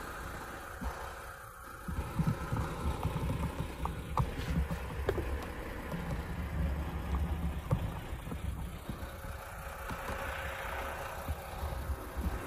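Diesel truck engine idling with a steady, wavering low rumble, with a few scattered light knocks over it.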